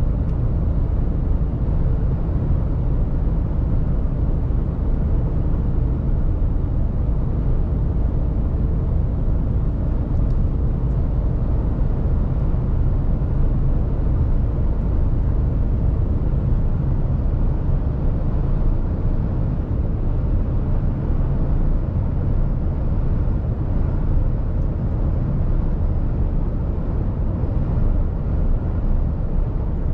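Steady low drone inside the cab of a Mercedes Actros truck cruising on a motorway: engine and tyre-on-road noise.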